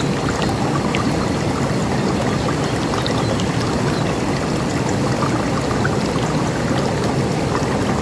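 River water flowing in a steady, even rush, with a few faint, brief bird chirps over it.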